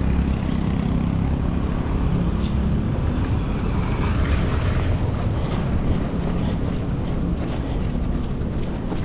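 Wind buffeting the microphone, a steady low rumble with a faint hiss over it.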